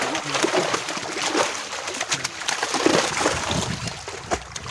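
Large fish thrashing in shallow water, crowded inside a drawn-in fishing net, making a run of short, irregular splashes.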